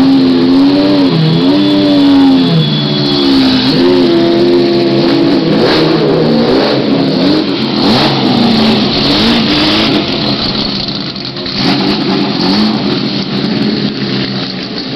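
Racing car engine running at low speed close by, its revs rising and falling in short throttle blips over the first few seconds; the car is the Vitaphone Maserati MC12 GT1 with its V12. Later the sound turns into a busier mix of race-car engines moving about the paddock.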